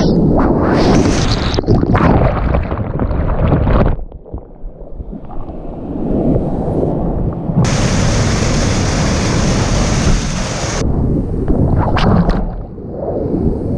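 Rushing whitewater of a river rapid, with heavy wind and water buffeting on the microphone. The sound dulls and drops for a second or so about four seconds in, and again briefly near the end.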